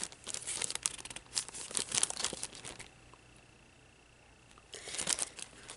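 Clear plastic packaging crinkling and crackling as it is handled, in quick rustles for the first few seconds, a pause of about two seconds, then crinkling again near the end.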